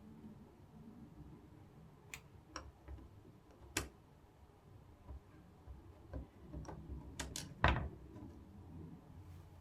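A few scattered light clicks and taps, irregularly spaced, over a faint low background; the loudest is a knock near the end.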